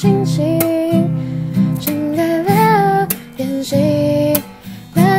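Tanglewood cutaway acoustic guitar strummed and picked in a slow song accompaniment, with a female voice carrying a gliding melody over it.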